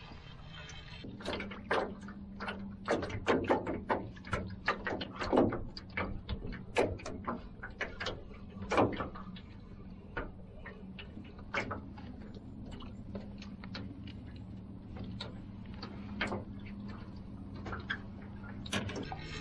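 A run of irregular knocks and clatter, dense for the first several seconds and then sparser, over a steady low hum.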